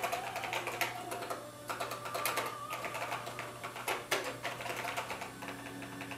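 Rapid, irregular typing on the Tano Dragon's keyboard (an American-built Dragon 64), its short-travel, linear keys clicking lightly under both hands.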